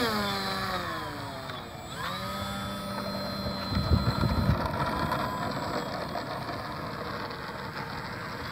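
Sunnysky 2820 800kv brushless electric motor spinning an APC 10x7 propeller on an RC plane. It whines up in pitch and back down once, then spools up again to a steady high whine as the plane rolls away for takeoff, with a brief low rumble about four seconds in.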